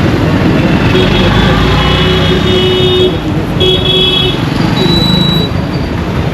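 Road traffic rumbling steadily, with vehicle horns: one held horn from about a second in to about three seconds, a shorter one just after, then a brief high beep near the five-second mark.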